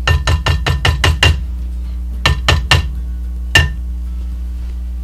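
Wooden spoon knocked against the rim of a glass mixing bowl to shake off batter: a quick run of about eight sharp taps, then three more, then a single last one, each with a short ring.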